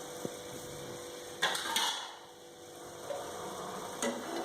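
A metal pan being handled and set on the stove: a small click, then brief clatters of metal against metal, about one and a half seconds in and again near the end, over a faint steady hum.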